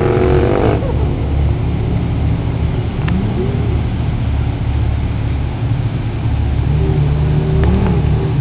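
Ferrari engine revving, its pitch rising over about the first second as a car accelerates, then a steady low rumble of engines running slowly, with a few brief rises and falls in pitch.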